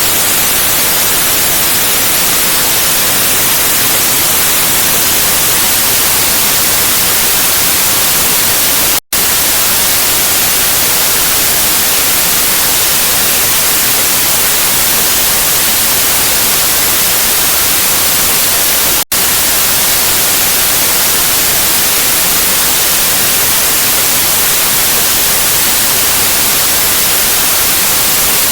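Loud, steady static hiss (white noise), cutting out for a split second twice, about ten seconds apart.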